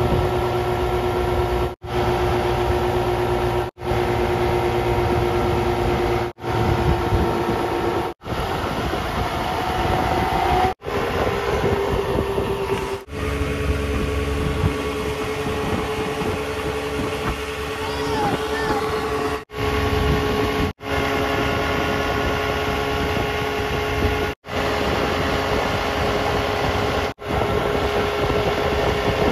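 Mercury outboard motor running steadily at towing speed, with wind and rushing water. The sound cuts out briefly every few seconds, and the engine's pitch shifts slightly after some of the breaks.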